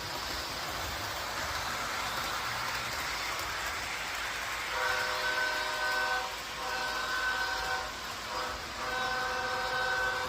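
A train running with a steady rushing noise, then its horn sounding a chord in three long blasts separated by short gaps, starting about halfway in.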